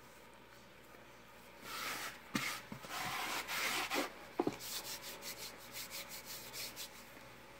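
Hands kneading flour tortilla dough in a plastic bowl: after a quiet start, rubbing and scraping of dough and flour against the bowl with a couple of dull thumps, then a run of quick short strokes, about four a second, that dies away near the end.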